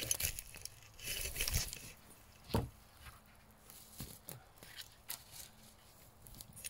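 Wood being handled during construction: a rustle about a second in, one sharp wooden knock midway, then a few fainter, irregular clicks.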